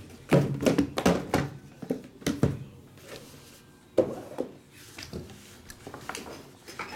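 Shrink-wrapped cardboard hockey card boxes being pulled from a stack and set down on a table: a cluster of knocks and thunks in the first second and a half, two more about two seconds in, and another pair about four seconds in, with quieter handling between.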